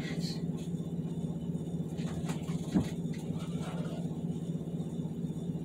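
Steady low hum throughout, with a single knock a little before the middle and a few faint clicks.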